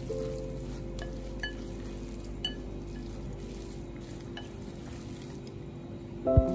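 Chopsticks tossing sauce-coated noodles in a ceramic bowl: a wet, crackling mixing noise with a few light clicks of the chopsticks against the bowl. Faint held music notes sit underneath, and a louder musical note comes in near the end.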